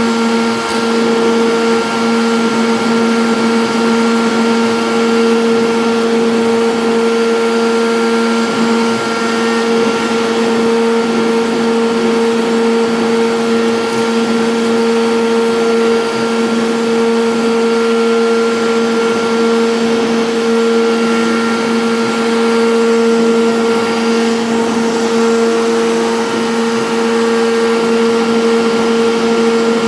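CNC router spindle running at a steady high speed while the bit carves a board, a constant hum with a rough cutting noise over it.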